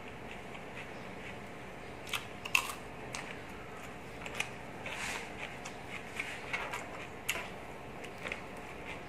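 Close-miked crunching and chewing of raw cucumber: a string of short crackly clicks, the loudest about two and a half seconds in.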